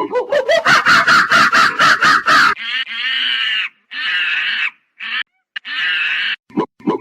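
Monkey calling: a fast run of short chattering calls for about two and a half seconds, then three longer, harsh screeching calls with short gaps between them, and short calls again near the end.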